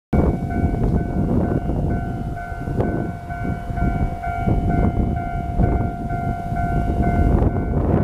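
Railway level-crossing warning bell ringing, a pulsing electronic ding about twice a second over a steady tone, signalling an approaching train. A heavy low rumble, like wind on the microphone, runs underneath.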